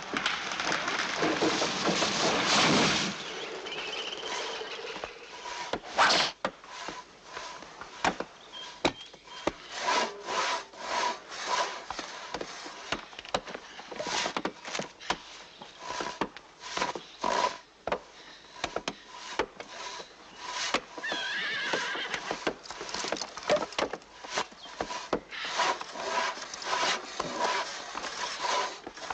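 Logs being chopped and sawn by hand: irregular sharp knocks and scraping strokes of tools on wood. A louder crashing rush fills the first three seconds.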